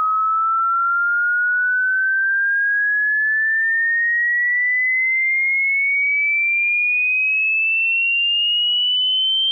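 Hearing-test sine tone: a single pure whistle at an even level, gliding slowly and steadily upward in pitch.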